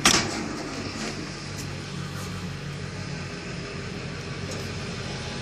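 A single sharp clunk at the very start from the fire truck's door latch handle, then a steady low mechanical hum.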